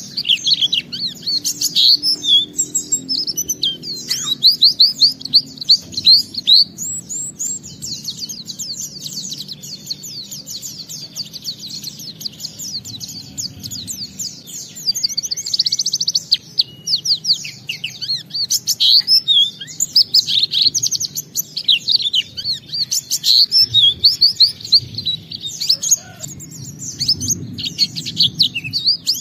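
A pleci (white-eye) singing: a long, unbroken stream of rapid, high twittering notes in quick-changing phrases. This is a bird in full, vigorous song ('gacor'), running through its repertoire ('bongkar isian').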